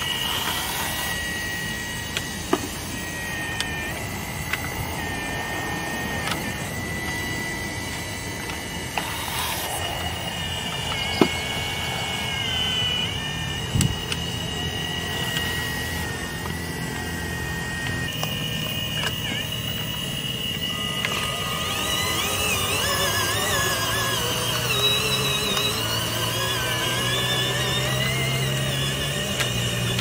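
Electric hydraulic pumps and motors of model RC excavators whining as they dig and load dirt. The whine holds at a few high pitches that shift and waver as the machines work, broken by a few sharp clicks.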